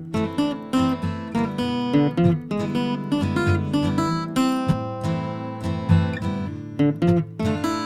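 Acoustic guitar music, strummed and plucked chords with a steady rhythm.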